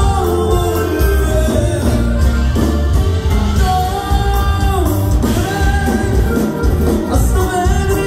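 Live norteño band playing dance music with a singer, loud, over a pulsing bass beat.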